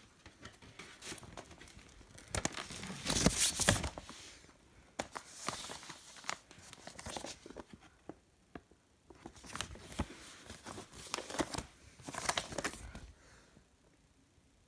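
Paper inner sleeve of a vinyl LP rustling and crinkling as the record is slid out and handled. It comes in several bursts, the loudest about three seconds in, and dies away near the end.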